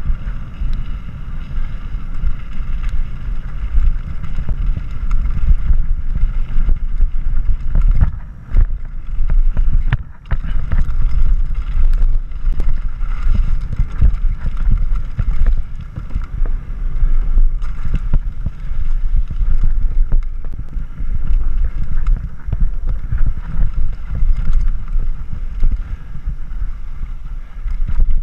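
Wind buffeting the microphone as a mountain bike rolls fast down a gravel trail, with the rumble of tyres on loose gravel and frequent clicks and rattles from the bike over rough ground. The noise dips briefly twice, about eight and ten seconds in.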